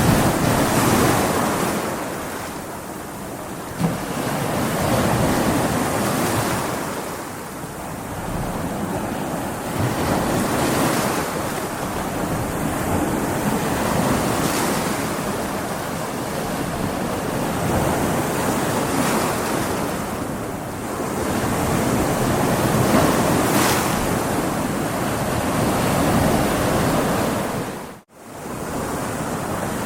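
Stormy sea: waves surging and breaking in a continuous wash, with wind, the noise swelling and easing every few seconds. The sound drops out abruptly for a moment near the end.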